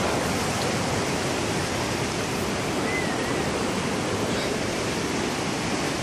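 Waterfall rushing steadily over rock: a constant, even wash of falling water.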